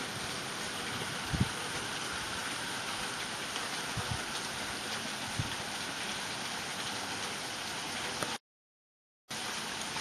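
Steady rain pouring down in a storm, with a few brief low thumps. The sound cuts out completely for about a second near the end.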